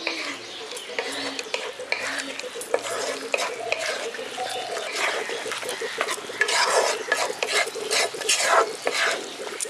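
A wooden spatula stirring sauce-coated onion and capsicum pieces in a wok, with irregular scraping strokes against the pan that come thicker in the second half, over the sauce frying in the pan.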